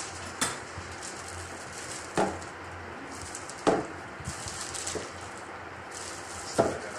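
Spools of thread being set upright one at a time on a tabletop: four short, separate knocks.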